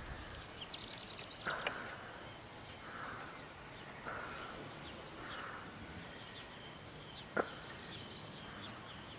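Faint outdoor ambience with distant birds chirping, including a quick high trill about a second in. A single sharp click sounds late on.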